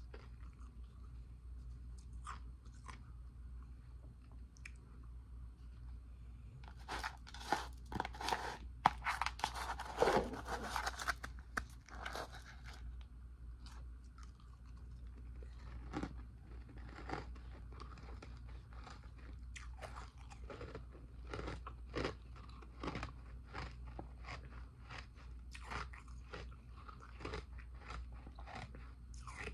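A person biting and chewing ice right at the microphone: a few scattered crunches, then a dense run of loud crunching from about 7 to 12 seconds in as a mouthful is bitten down, followed by steady crunches, one or two a second, as the ice is chewed.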